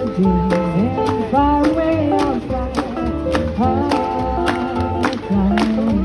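Background music with a steady beat, a bass line and a melody that slides between notes.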